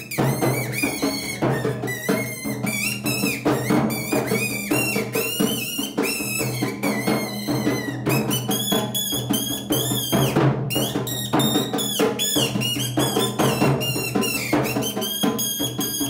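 Rajasthani folk music playing for a kathputli puppet dance, with a steady drum beat under a high, wavering melody line.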